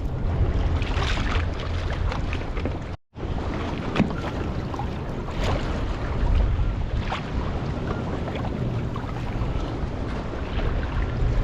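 Strong wind buffeting the microphone over choppy sea, with water slapping and splashing against the hull now and then. The sound cuts out for a moment about three seconds in.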